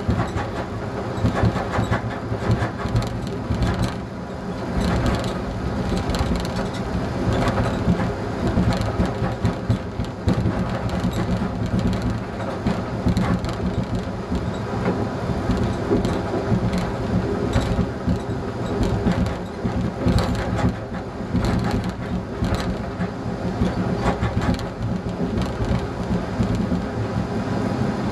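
ČD class 854 diesel railcar heard from the driver's cab, running at speed: a steady diesel engine drone and wheel rumble, with irregular clicks and knocks from the wheels passing over the track.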